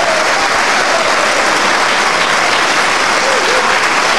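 Sustained applause from the lawmakers in the congressional chamber, even and unbroken.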